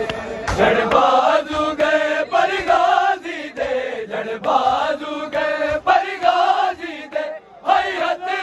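Group of men chanting a Punjabi noha (Muharram lament) in unison through a microphone, in drawn-out phrases, with chest-beating slaps (matam) heard among the singing.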